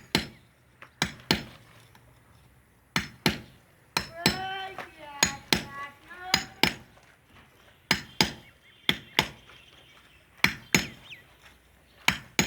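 A hammer striking a screwdriver, knocking a hole into a wall without a drill: sharp metallic blows, mostly in pairs, every second or two, with the screwdriver turned a little between blows. A short wavering call sounds in the background a few seconds in.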